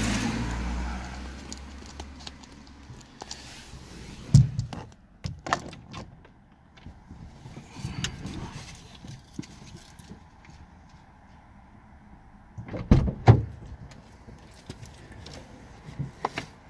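Handling noises inside a car: rustling and scattered clicks and knocks, with a louder thump about four seconds in and a cluster of thumps about thirteen seconds in.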